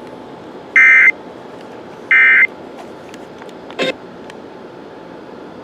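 Emergency Alert System end-of-message data bursts: the last two of the three short, harsh, buzzing SAME code tones that close an EAS alert, each about a third of a second long and about a second and a half apart, over a steady hiss. A single click comes near four seconds in, and then the sound cuts off.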